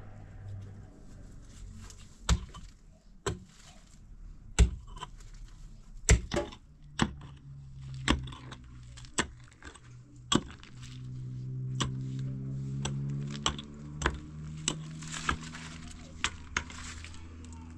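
Short-handled mattock striking hard, stony ground in sharp knocks, roughly one blow a second. A low steady drone comes in about halfway through and swells.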